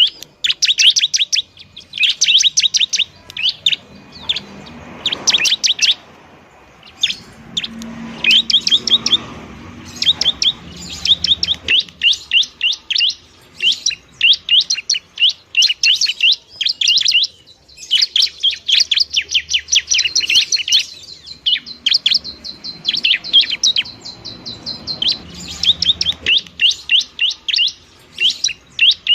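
Bar-winged prinia (ciblek) singing noisily: fast runs of sharp, high chirping notes, repeated in bursts with short breaks between them.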